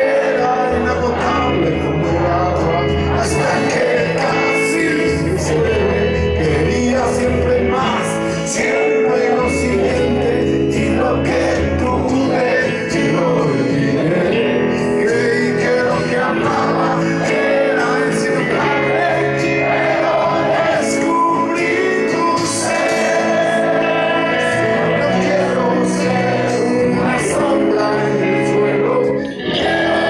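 A rock band playing live on an amplified stage, with electric guitar, bass and drums, and regular cymbal hits, heard from within the audience.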